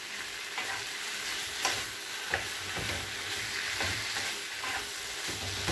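Gizzard frying in a thick pepper sauce in a frying pan, sizzling steadily, while a wooden spoon stirs and scrapes through it with short strokes every second or so.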